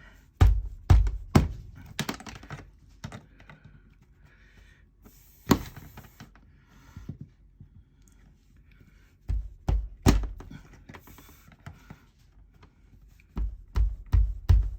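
Knocks and thunks of a straight-bladed screwdriver pressing wires into the slots of a plastic RV wall outlet braced against a wall. They come in short groups: several at the start, one about five seconds in, a few around nine to ten seconds, and more near the end. Quieter handling sounds fill the gaps.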